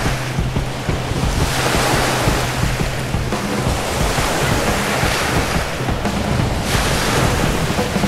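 Wind-driven lake waves washing onto a sandy beach in a strong wind, the wash swelling as each wave breaks, with wind buffeting the microphone.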